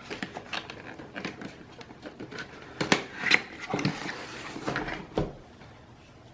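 Cardboard box being handled and cut open with a blade: irregular taps, clicks and short scrapes, with a brief rasping slice about four seconds in, then stillness near the end.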